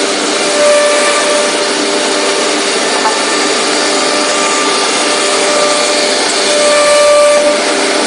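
Double-table CNC drilling machining center running and cutting, a steady mechanical noise with a faint pitched whine over it that swells about half a second in and again near seven seconds.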